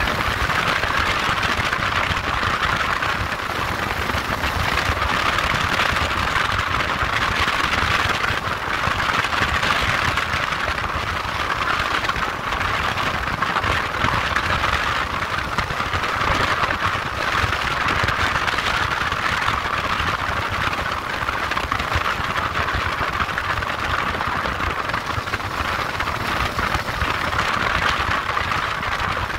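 Motorcycle engine running as the bike is ridden along, its low pulsing beat under a steady rush of wind and road noise.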